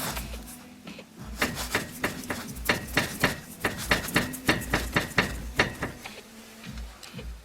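Citroen C4 windscreen-washer fluid reservoir knocking: a quick run of sharp hard knocks, about four a second, starting about a second in and easing off near the end. This is the knock of a loose reservoir, often taken for a suspension knock.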